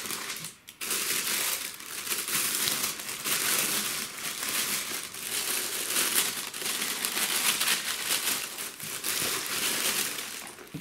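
Tissue paper crinkling and rustling as hands fold it back and pull it apart inside a shoebox, with a brief lull less than a second in.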